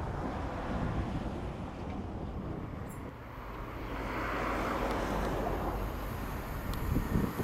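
Train approaching. Its rising rumble and rushing noise build from about four seconds in over a steady outdoor background: a GWR Class 800 bi-mode train, running on its underfloor diesel engines on this unelectrified line.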